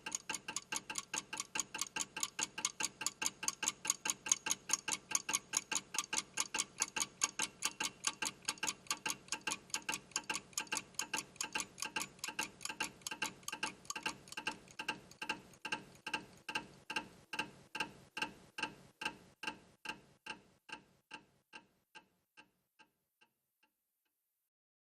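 Clockwork mechanism ticking steadily, then slowing and fading as the spring runs down, until it stops near the end.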